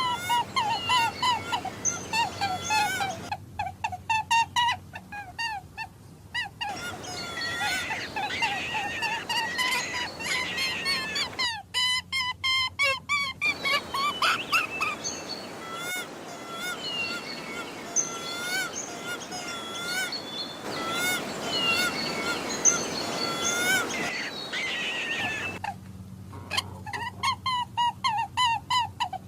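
Rabbit squealing: quick runs of short, high-pitched squeaks and cries. Several separate recordings are cut together, with abrupt changes at the joins.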